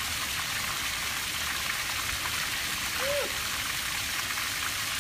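Water jetting from the bottom outlets of full plastic rain tanks and splashing onto flooded grass: a steady rush and splash of draining water.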